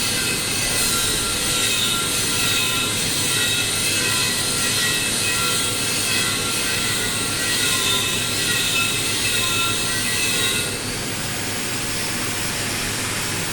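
TIG welding arc burning steadily, a continuous hiss with high steady tones. It softens slightly and loses some of its top end about eleven seconds in.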